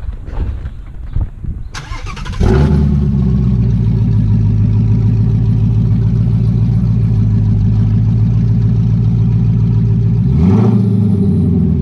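Ford Mustang Shelby GT350's 5.2-litre flat-plane-crank V8 starting about two and a half seconds in and settling into a steady idle, with a brief rise in revs near the end.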